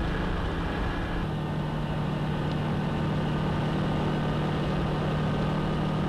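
Car engine running steadily while driving, heard from inside the cabin, a constant hum whose note shifts about a second in and then holds.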